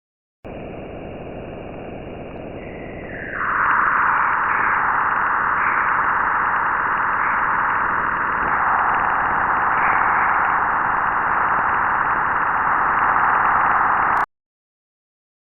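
Spacecraft radio and plasma-wave data turned into sound: a steady hiss, joined about three seconds in by a much louder hissing band that holds for about ten seconds and then cuts off suddenly.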